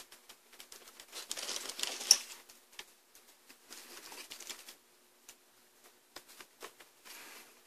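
Handling noise: cloth rustling and light clicks and scrapes as test-lead wires and the LED bar tester's leads are picked up and moved around on a workbench, with the most rustling about one to two seconds in.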